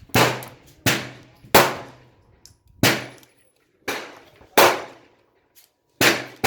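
Pistol gunshots at a shooting range: about eight sharp reports at an uneven pace, each followed by a short echo.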